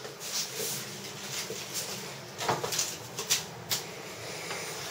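A few light scattered knocks and clicks with faint rustling, as of someone moving about a small room.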